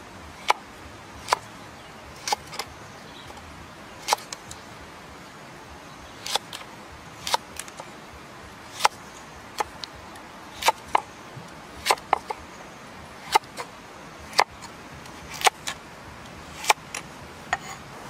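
Kitchen knife slicing a carrot lengthwise into strips on a round wooden chopping board. Each stroke ends in a sharp knock of the blade on the wood, irregular, roughly one a second and sometimes two close together.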